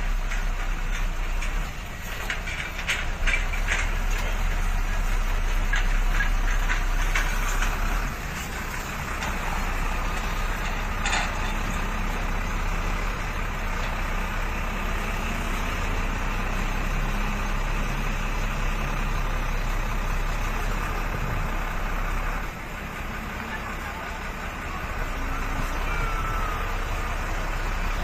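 Steady engine and road noise of a moving vehicle, heard from inside the vehicle, with a few knocks in the first several seconds.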